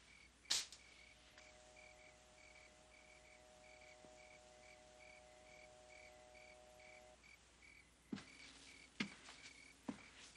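Faint, steady cricket-like chirping, high-pitched and about three chirps a second. A sharp knock comes just after the start, a steady hum runs through the middle, and a few soft knocks come near the end.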